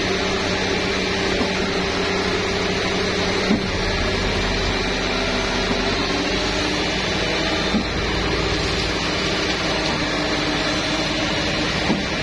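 Concrete mixer truck and concrete pump machinery running steadily: a constant diesel engine and hydraulic drone, with a short knock about every four seconds.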